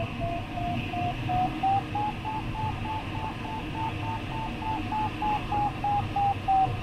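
Glider variometer sounding its climb tone: short beeps about three a second, rising in pitch over the first two seconds and then holding steady, the sign that the glider is climbing in a thermal. Steady airflow hiss in the cockpit underneath.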